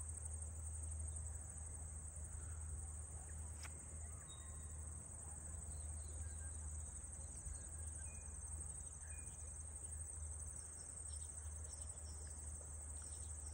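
Steady, high-pitched trilling of a cricket chorus, with a low steady rumble underneath.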